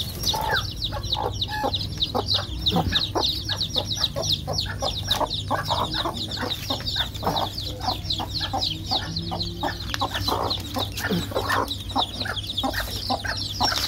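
A brood of chicks peeping continuously in fast, high, falling chirps, with a hen clucking lower among them.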